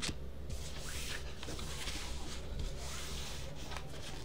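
Trading cards being handled and gathered up by hand: faint rubbing and light scattered taps over a steady low hum and hiss.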